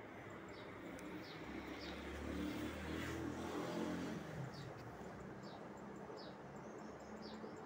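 A low mechanical hum swells up and fades away over about three seconds, while a small bird chirps repeatedly with short falling chirps.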